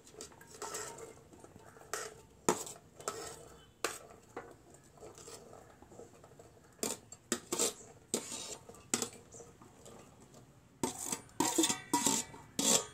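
Chopped chayote pieces being tipped from a perforated steel bowl into an aluminium pressure cooker: scattered clinks and knocks of metal on metal and pieces dropping in, coming thicker near the end.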